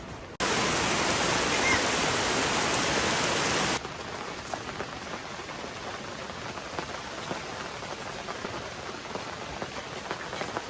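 Heavy rain falling, loud for the first few seconds, then dropping to a softer steady downpour for the rest.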